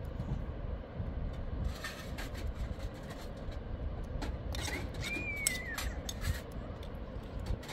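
Metal spoon clinking and scraping against a cooking pot in short sharp clicks, over a steady low rumble. A short high call that rises and then falls comes about five seconds in.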